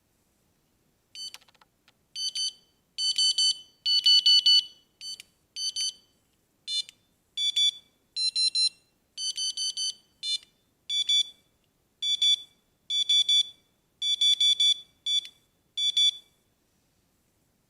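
Electronic carp-fishing bite alarm beeping in runs of short, high beeps. The tone steps to a different pitch between some of the runs.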